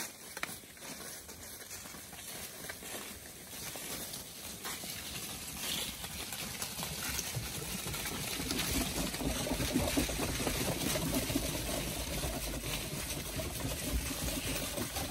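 Tennessee Fainting goats' hooves rustling and crunching through dry fallen leaves as the herd runs past, growing louder about halfway through.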